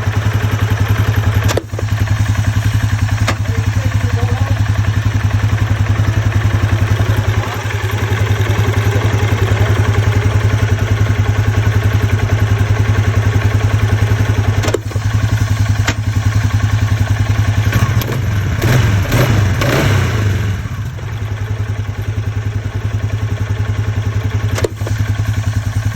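Polaris Sportsman 570 ATV engine idling steadily, with a sharp clunk about five times as the gear selector is shifted: the shifting noise under diagnosis. Around two-thirds of the way through, the engine note wavers and changes for a few seconds.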